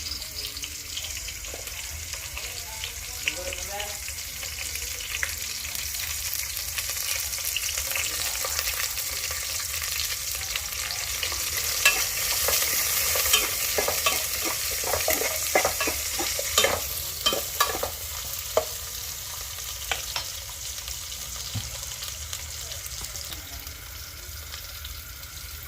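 Food sizzling steadily in hot oil in a pan, with repeated sharp clicks and knocks of a utensil stirring it, busiest in the middle stretch.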